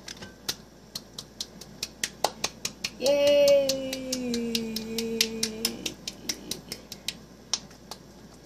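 Cold homemade slime clicking and popping stickily as it is squeezed and kneaded in the hands, about four sharp clicks a second. About three seconds in, a voice holds one long, slightly falling note for nearly three seconds.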